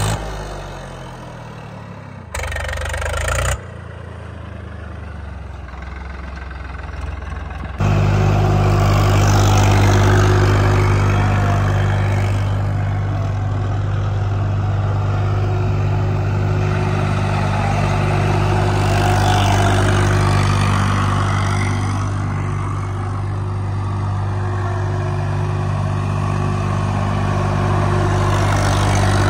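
Swaraj 744 XT tractor's diesel engine running hard at high, steady revs while its rear tyres spin and dig into loose sand. The sound jumps abruptly a few times in the first eight seconds, then holds one steady pitch.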